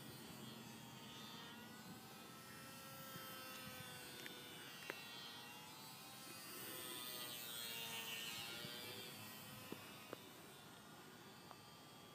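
Parkzone Ultra Micro T-28 Trojan RC plane flying overhead: the faint buzzing whine of its small electric motor and propeller. The pitch drifts up and down as the plane manoeuvres, and the sound swells in the second half as it comes nearer, then fades. A few faint sharp clicks are heard along the way.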